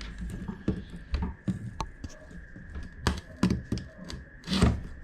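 Rubber spline seal being pulled out of the channel of a fly screen frame: irregular small clicks, ticks and scrapes as it comes free.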